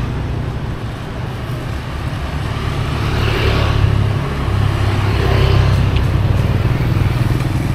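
City street traffic: motor vehicle engines running close by with road noise, growing louder through the middle and easing a little near the end.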